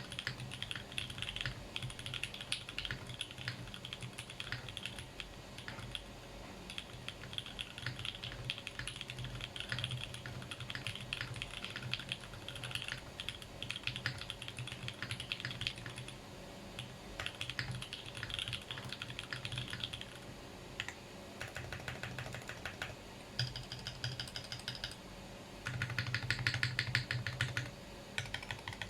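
Typing on a Think 6.5 v2 mechanical keyboard with lubed and filmed Alpaca linear switches, GMK keycaps, and plate and case foam: a steady run of keystrokes, with a louder stretch of fast, even key presses near the end.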